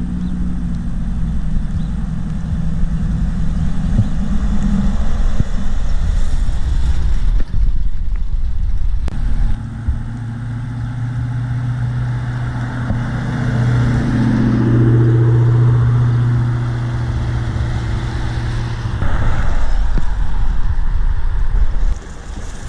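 Car engines running as show cars roll slowly in past. One engine's steady low note is the loudest thing from about ten seconds in until near the end.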